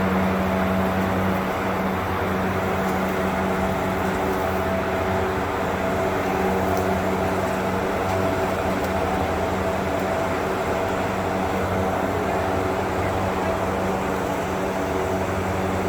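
Steady mechanical drone: an unchanging low hum under an even rushing noise, with no breaks or changes in level.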